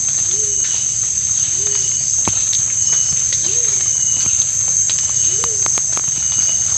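Steady, high-pitched drone of forest insects. A soft, low call rises and falls about once a second underneath it, and there are a few sharp handling clicks.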